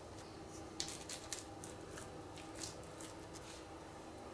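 Faint, short scrapes and soft squishes of a silicone spatula scraping thick bread dough out of a mixing bowl and spreading it into a silicone loaf pan, a stroke every half second or so.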